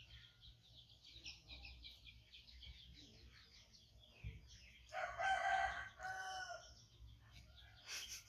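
Small birds chirping throughout, and about five seconds in one loud drawn-out animal call in two parts.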